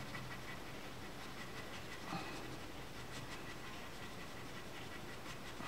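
Faint scratching of a colored pencil shading on paper, a few light strokes over low room hiss.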